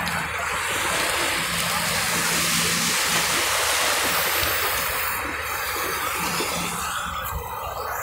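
Small sea waves washing over a rocky shore: a steady hiss of surf that eases off about seven seconds in, with a faint steady low hum underneath.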